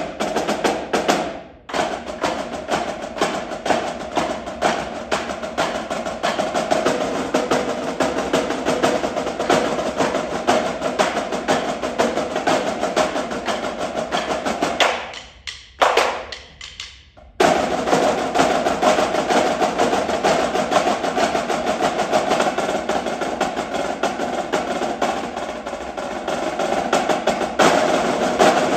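Percussion ensemble playing a fast, dense stream of mallet strokes, many players at once. The playing breaks off briefly about a second and a half in, and again for about two seconds around the middle, then resumes.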